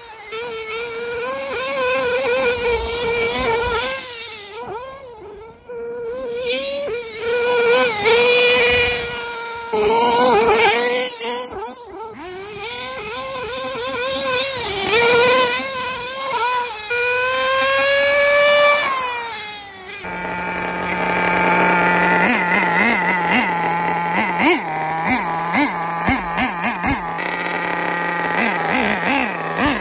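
Tamiya Nitrage 5.2R's FR-32FX 5.2cc nitro engine revving, its pitch rising and falling again and again. For the last ten seconds or so it runs at a steadier pitch.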